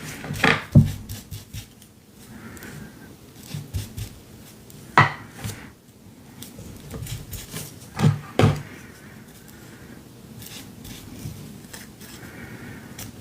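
Paper being glued onto a canvas by hand: soft rubbing and brushing with a few sharp knocks, the loudest about five and eight seconds in.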